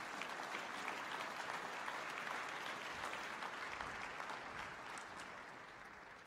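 A large audience applauding, the clapping dense at first and dying away near the end.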